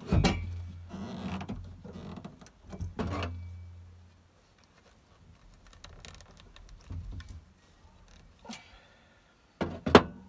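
Aviation tin snips cutting into thin metal angle, with sharp snaps at the start and again about three seconds in, then quieter handling of the strip in the middle. About ten seconds in there is a loud metallic clank as the snips are set down on the steel crossmember.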